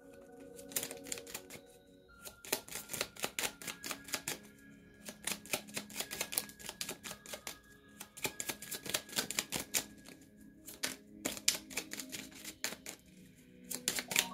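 A deck of angel oracle cards being shuffled by hand, the cards clicking and slapping together in quick runs. Soft background music with held tones plays underneath.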